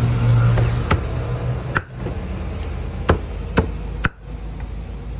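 Cleaver chopping roasted duck on a thick wooden chopping block: five or six sharp chops at uneven spacing, the loudest two about three seconds in, half a second apart.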